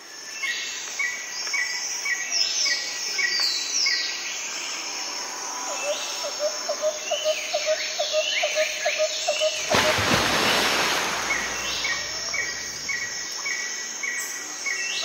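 A nature soundscape of birds calling: a short chirp repeats about twice a second, with several higher calls sweeping downward. A run of quick insect-like ticks sits in the middle, and a brief burst of rushing noise comes about ten seconds in.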